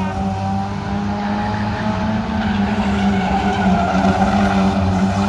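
A pack of 1450 saloon stock cars racing round an oval, several engines running hard together in a steady, wavering drone, with some tyre scrub.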